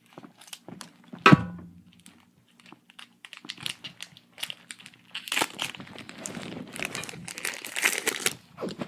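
Scissors cutting a foil Pokémon booster-pack wrapper, with scattered clicks and one louder sharp sound about a second in, then the foil crinkling and tearing steadily from about five seconds in as the pack is pulled open.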